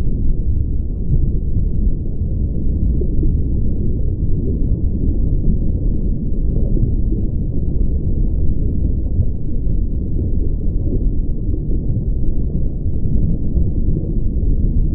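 Steady deep rumble of an underwater ambience sound effect, with no pitch or rhythm.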